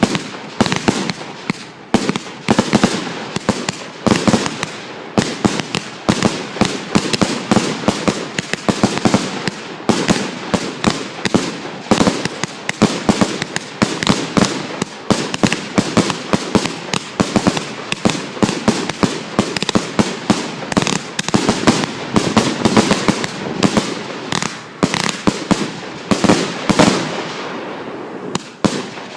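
Multi-shot consumer firework cakes firing: a rapid, unbroken string of sharp bangs, several a second, that thins out and fades in the last couple of seconds.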